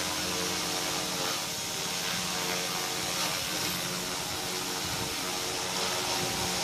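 Devil 380 electric radio-controlled helicopter hovering: a steady whine from its motor and spinning rotors over a rush of blade noise.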